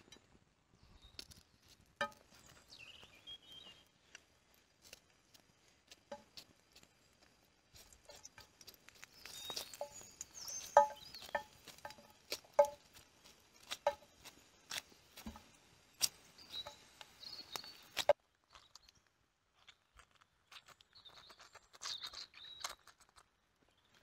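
A knife cutting through a raw onion held in the hand: a scatter of short, crisp cuts and clicks, thickest in the middle stretch.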